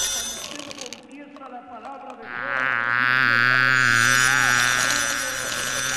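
Electronic sound-design effect: a high buzzing texture dies away, and after a short lull a loud warbling buzz with a low steady hum beneath it swells up about two seconds in, then eases slightly toward the end.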